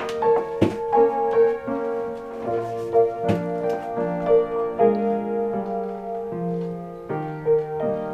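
Gentle piano background music with a steadily repeated note over slow chords, with a few soft knocks in the first few seconds.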